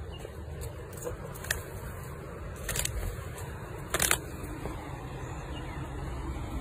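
A rooster flapping and striking at a man's trouser leg gives a few short, sharp sounds. The loudest is a quick cluster about four seconds in. Under them runs a steady low rumble.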